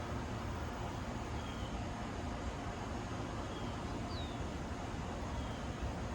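Outdoor ambience: a steady low rumble and hiss. Four faint short high chirps come one to two seconds apart.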